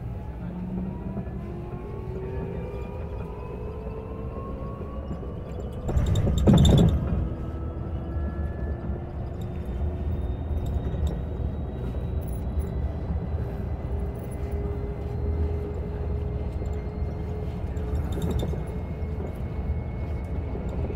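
Olectra K9 electric bus heard from inside the cabin while under way: a steady low rumble from the ride, with a faint whine that rises in pitch over the first several seconds as the bus gathers speed. A loud jolt about six seconds in.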